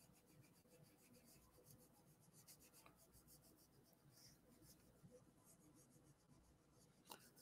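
Very faint fingertips rubbing and pressing collage paper onto a sketchbook page: a soft, scratchy paper rubbing in many small strokes, close to near silence.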